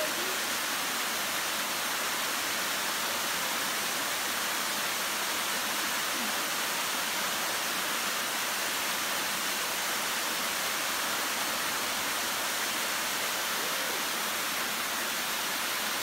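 Waterfall falling into its rock plunge pool: a steady, even rush of water.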